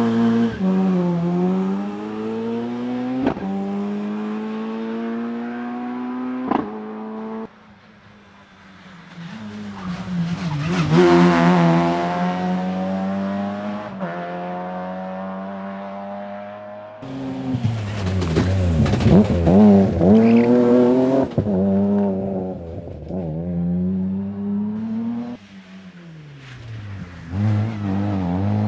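Rally cars at full stage pace: engines rev up through the gears and fall in pitch on lifts and braking, with a few sharp cracks from the exhaust. The sound jumps between several different cars.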